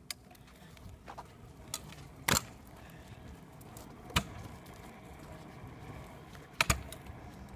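Kick scooter rolling on asphalt, its wheels making a low steady rumble, with several sharp clacks from the scooter. The loudest clack comes about two seconds in, and a quick double clack comes near the end.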